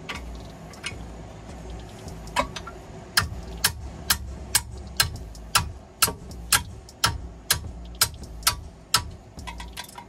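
Long-handled hammer striking metal in the rear wheel well, knocking at a seized coilover on an Acura Integra's rear suspension. One blow comes about two seconds in, then a steady run of sharp blows about two a second from about three seconds in.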